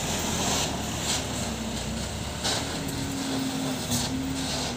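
Diesel engine of a sand-loaded Hino Dutro truck running smoothly with a steady hum as the truck drives off on a dirt road, with a few sharp clicks along the way.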